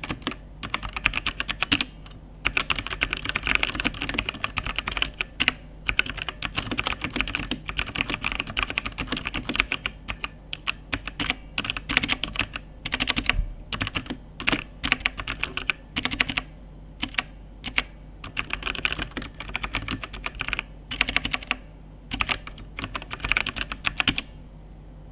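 Fantech Maxcore MK852 mechanical keyboard with Outemu Brown switches being typed on: fast runs of key clacks broken by short pauses and a few single louder strokes, stopping about a second before the end.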